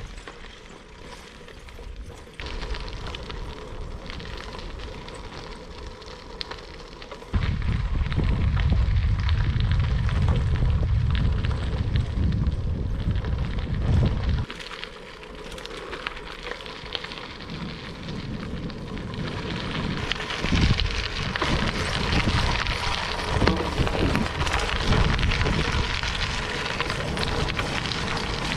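Mountain bike tyres crunching and crackling over a gravel track, louder in the second half. In the middle there is a stretch of low wind rumble on the action-camera microphone.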